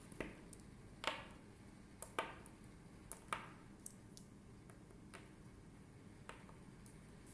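Light clicks and taps of small metal alloy snap-button charms being handled and set down on a hard surface, scattered irregularly, the sharpest about one, two and three seconds in.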